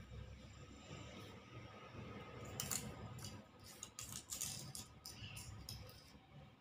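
Ballpoint pen drawing on paper: a run of short, faint scratching strokes in the middle.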